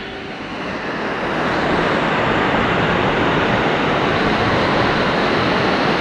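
Waterfall rushing close by, a steady roar of falling water that grows louder over the first couple of seconds and then holds even.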